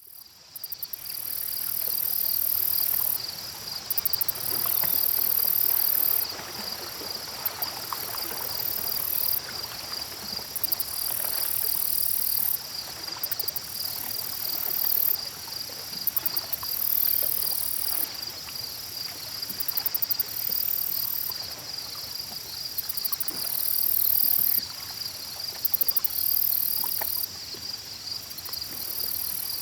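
Lakeside insect chorus. One insect trills steadily in a fast, even pulse, while louder, shriller insect calls start and stop every second or two, each beginning with a short stutter. Faint small water sounds lie underneath.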